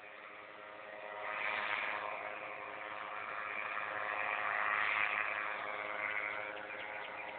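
Tandem paramotor's engine and propeller running as a steady buzzing drone, swelling about a second in.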